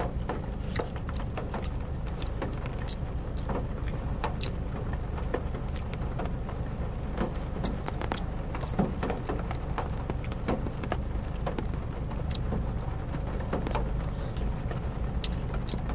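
Close-up eating sounds: mac and cheese being chewed, with a plastic fork clicking and scraping in a paper cup, as irregular small clicks and smacks over a steady low rumble.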